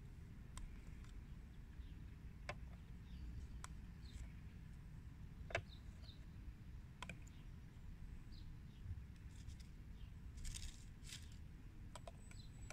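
Faint outdoor ambience with a few light clicks, metal forceps tapping a small plastic collection tube and tray while spiders are picked out. Small birds chirp in the background, with a brief run of high chirps about ten seconds in.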